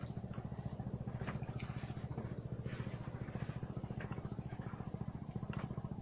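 A small engine running steadily with a fast, even low pulse, as at idle, with a few faint clicks and knocks over it.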